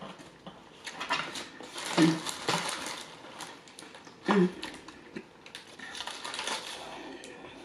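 Paper fast-food wrapper crinkling and rustling in quick, irregular crackles as a burger is unwrapped.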